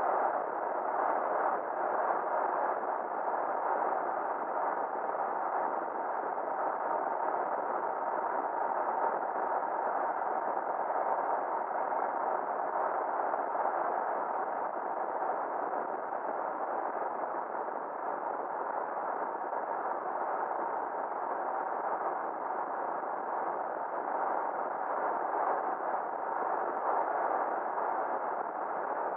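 Steady, muffled road and wind noise of a Ford F-350 pickup driving on the highway.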